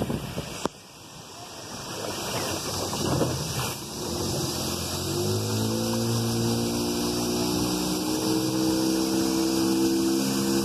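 Motorboat engine running at speed with rushing water and wind noise. The engine note climbs a little about halfway through and then holds steady.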